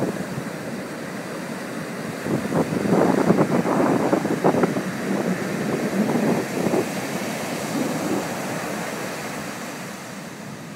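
Ocean surf washing up onto the sand, mixed with gusts of wind buffeting the phone's microphone. The rush swells a few seconds in and fades toward the end.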